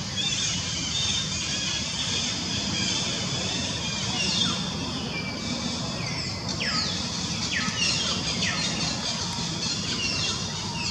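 High, thin animal calls, each sweeping quickly down in pitch, repeated about once a second from about four seconds in, over a steady high hiss and low rumble of outdoor background.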